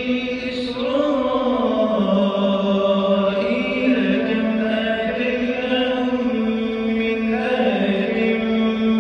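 A man reciting the Quran in a slow melodic chant, drawing out long held notes that bend gently in pitch, with a brief breath-like dip about a second in.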